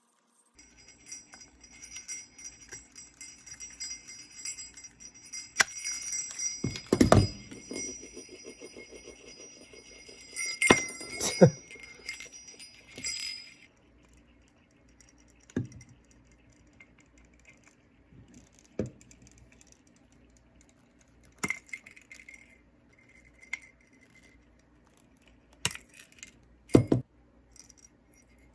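Sleigh bells jingling and clattering, with several ringing tones held for about the first thirteen seconds and a few sharp knocks among them. After that it is quieter, with about five separate sharp knocks spread out over the rest.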